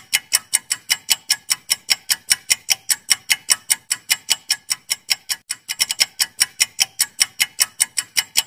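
Clock-tick countdown timer sound effect: a fast, even ticking, about five ticks a second, that cuts off suddenly at the end.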